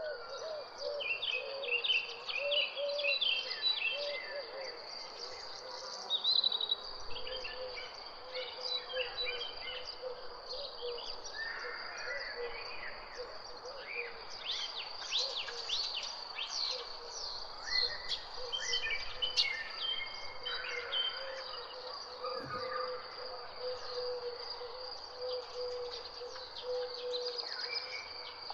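Several birds chirping and singing in quick, overlapping phrases, over a steady high-pitched drone and a fainter steady lower hum.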